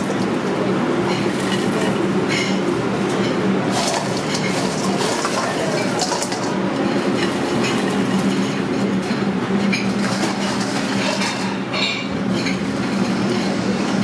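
Restaurant kitchen noise: a steady machine hum under scattered clinks and clatter of dishes and utensils.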